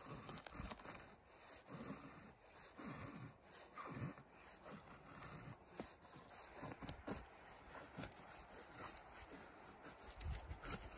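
Knife blade shaving thin curls down a split wooden stick to make a feather stick: faint, repeated scraping strokes at an uneven pace.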